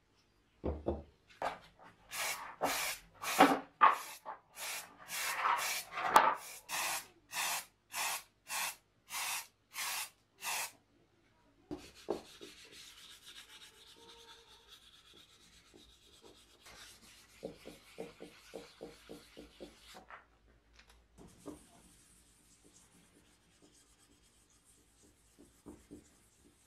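Hand sanding of the parts of an old hand-cranked grinder. About ten seconds of firm rubbing strokes, about two a second, give way to softer, quicker rubbing of sandpaper along the edge of a painted cover, which fades to faint scraping near the end.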